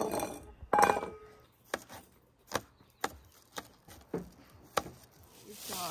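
Kitchen knife chopping green onions on a cutting board: sharp, separate taps about every half second, after a louder clatter just under a second in.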